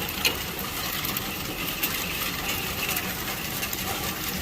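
Hail coming down hard: a steady hiss of falling hailstones with many small sharp clicks as they strike.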